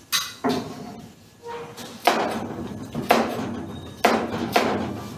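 Chef's knife cutting a carrot into sticks on a plastic cutting board: a sharp knock each time the blade meets the board, several strikes at uneven spacing of roughly a second, each ringing on briefly.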